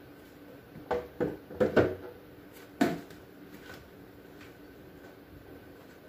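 Knocks and clunks of containers and bins being set back onto refrigerator shelves: four quick ones about a second in and a last one near the three-second mark.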